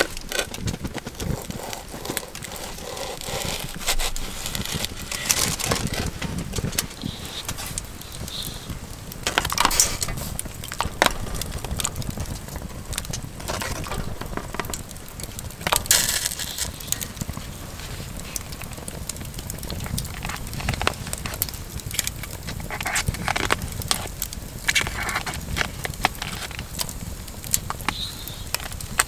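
Wood fire crackling and popping, with a knife cutting raw chicken on a plastic cutting board and pieces of chicken slid off the board into a pot of broth.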